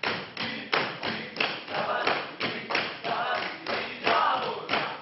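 Rhythmic slapping and stamping of a Hungarian Roma (Gypsy) dance, about three sharp beats a second, with voices singing short phrases over the beat.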